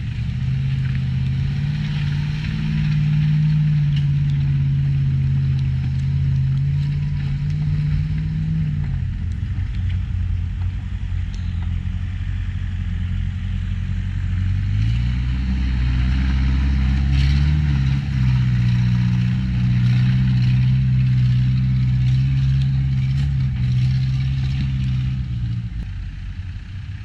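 Land Rover engine working off-road at low speed, its note held steady, easing off about a third of the way in, then rising again with more throttle before it fades near the end.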